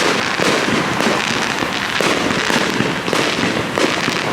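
Fireworks display going off: loud bangs and crackling from exploding shells, one after another with no let-up.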